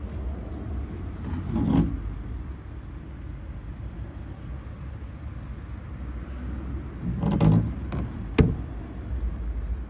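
A side panel of a Riley RME's hinged steel bonnet is lifted open about two seconds in. Near the end it is lowered with a rattle and shuts with one sharp metal clack. A steady low rumble runs underneath.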